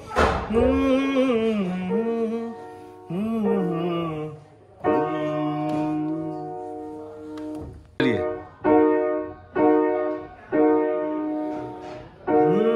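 Song interlude: a wordless vocal line with heavy vibrato for the first few seconds, then sustained instrument chords, struck again about once a second near the end.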